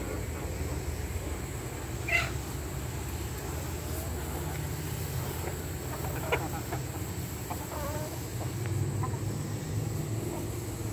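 Backyard chickens clucking now and then, with a short, sharper call about two seconds in and a few fainter clucks later, over a steady low background rumble.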